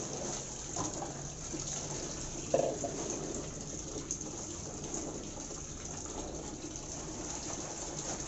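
Tap water running steadily, pouring from a wall faucet into a plastic bucket, with one brief louder sound about two and a half seconds in.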